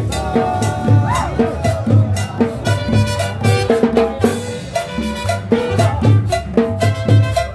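A live tropical dance band playing with a steady Latin beat: hand-played conga drums, a plucked upright bass and a saxophone carrying the melody.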